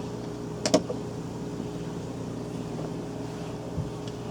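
A single sharp gunshot about a second in, over a steady low mechanical drone, with a faint low thump near the end.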